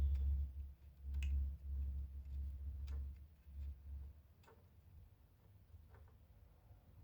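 Scattered light clicks and taps from hand-work on a wooden musket stock, over a low rumble that stops about four seconds in.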